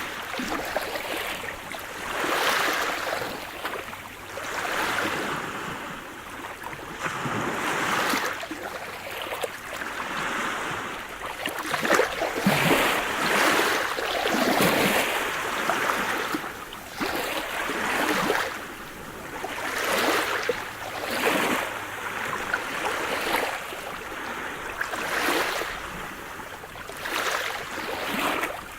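Sea surf: waves breaking and washing up the shore, the rush of water swelling and falling back every two to three seconds.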